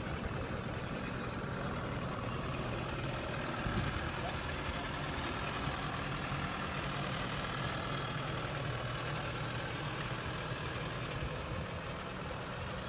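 Engine of a small tourist road train running steadily, a low even hum, with one brief bump about four seconds in.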